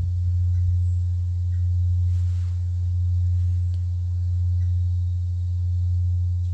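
Large bronze Korean temple bell (beomjong) ringing on after a strike: one deep, steady hum that swells and eases in slow waves about every two seconds.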